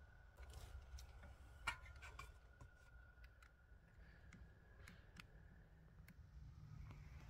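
Faint clicks and light taps of hands handling a coiled mosquito coil inside a small metal wire cage holder while lighting it, the sharpest click a little under two seconds in, then scattered soft ticks.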